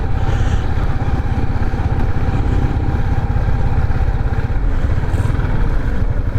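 Motorcycle engine running steadily with a fast, even low pulsing.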